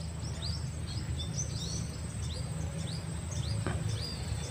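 Small birds chirping, a quick string of short falling notes several times a second, over a steady low outdoor rumble and a faint steady high insect buzz.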